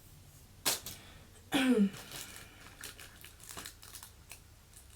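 Plastic packaging crinkling and rustling in short bursts as ring-light parts are unpacked and handled. There is a sharp rustle just under a second in, and a louder one about a second and a half in with a brief falling vocal sound.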